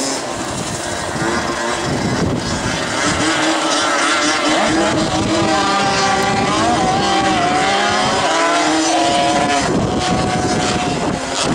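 Several small two-stroke 50cc moped engines revving hard and accelerating, their pitch rising and falling, with more than one engine heard at once.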